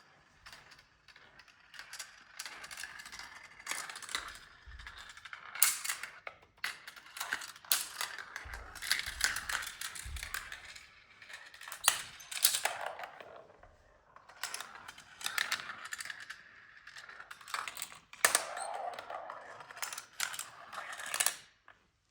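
Steel marbles rolling and clattering through a Gravitrax plastic marble run, with a steady rolling rattle broken by many sharp clicks and knocks as they drop through the track pieces. The run comes in waves and stops suddenly near the end.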